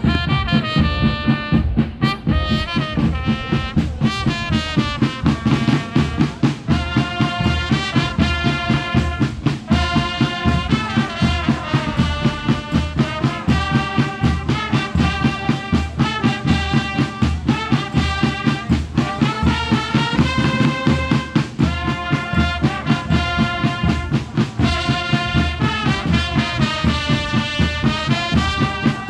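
A marching band of brass and drums playing a lively tune over a steady, even drum beat.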